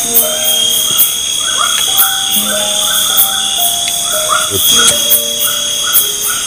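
Night chorus of insects and frogs: steady high insect buzzing, short chirps repeating a few times a second, and held calls at several pitches starting and stopping.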